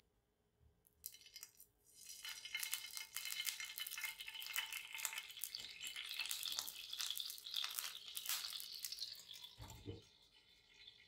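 A splash of water poured into a hot nonstick frying pan, sizzling and crackling as it boils off into steam. Just before the end a glass lid is set on the pan with a low knock, and a softer hiss goes on under it.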